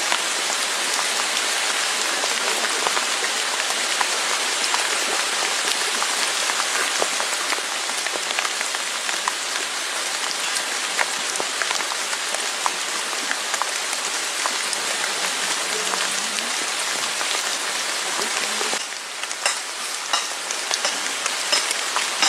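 Steady rain falling, a dense hiss flecked with drop hits. Near the end it thins for a moment and single taps stand out.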